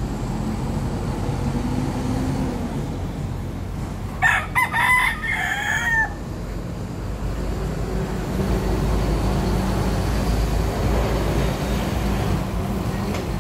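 Feral Key West rooster (gypsy chicken) crowing once, a call about two seconds long starting about four seconds in, over a steady low rumble.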